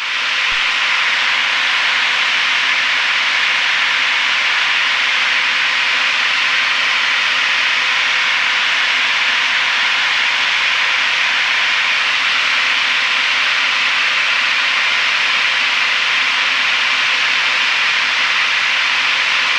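Steady, even rushing hiss on a light aircraft's radio and intercom audio feed, with a faint steady hum tone under it and no voices.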